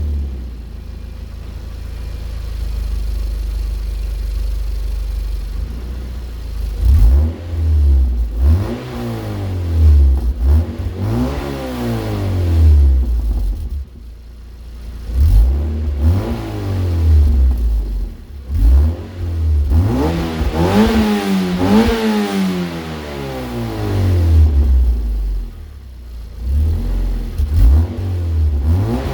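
Mazda Miata NC's four-cylinder engine running cold through a Yonaka axle-back exhaust: it idles steadily, then from about seven seconds in is revved again and again in short throttle blips, each rising and falling. The exhaust has a leak sound that the owner says the washer spacer at the joint does not cure.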